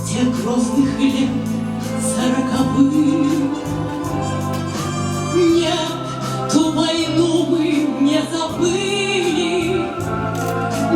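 Music: a woman singing a slow melody with vibrato over an instrumental accompaniment with a steady bass.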